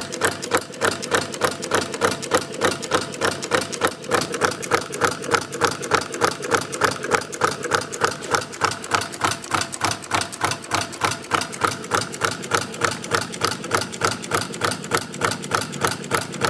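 Homemade single-cylinder engine, its piston pulsed by a timer-switched electromagnetic coil, turning a crank and plastic flywheel. It runs with a steady, even clatter of about four knocks a second.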